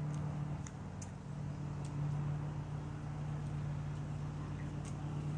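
Steady low machine hum holding one pitch throughout, with a few faint light clicks over it.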